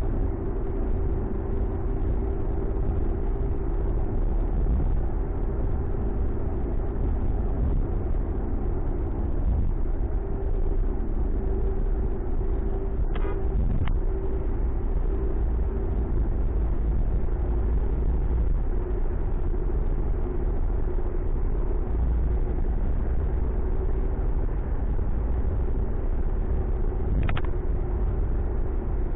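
Ford Mustang driving, heard from inside the cabin: a steady low rumble of engine and road noise with a constant hum. A few brief clicks about halfway through and near the end.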